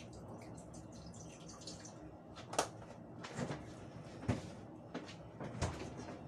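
Steady low hum of a lit gas stove burner under a pot, with about five short, sharp knocks in the second half.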